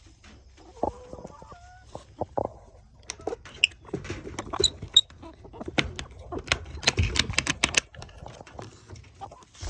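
Chickens clucking, with one short call about a second in, mixed with a busy stretch of clicks and knocks in the middle.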